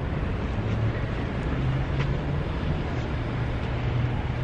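Steady low hum of a vehicle engine running, over a wash of street noise.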